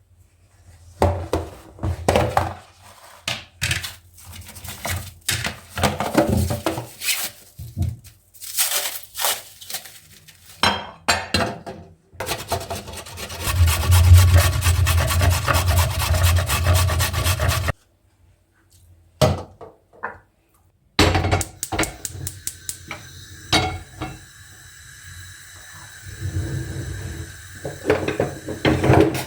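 Kitchen handling sounds: bowls, utensils and containers knocked, clinked and set down on the counter, with a dense, steady rasping or whirring stretch of about five seconds in the middle.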